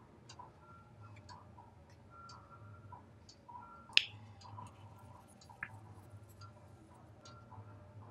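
Light ticks and clicks of paper being folded and creased by hand, with a sharp click about halfway through as the tip of a glue bottle is pressed to the paper. A faint low hum runs underneath.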